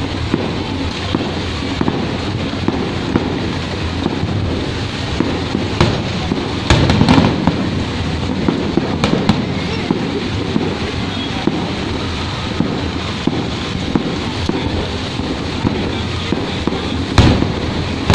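Fireworks going off: a continuous run of crackling and popping reports, with louder bangs about seven seconds in and again near the end.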